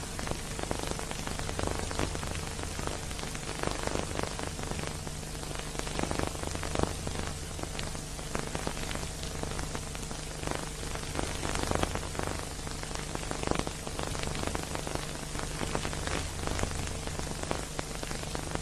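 Steady crackle and hiss of an old silent-film transfer with no score: irregular clicks over even noise, with a low steady hum underneath.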